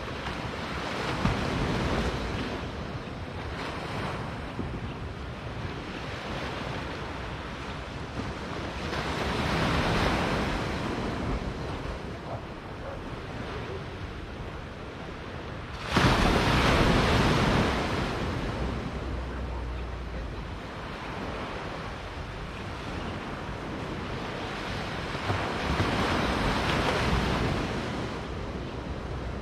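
Small waves breaking and washing up a sandy beach, swelling and fading about every seven or eight seconds, with the loudest surge starting suddenly a little past halfway. Wind rumbles on the microphone underneath.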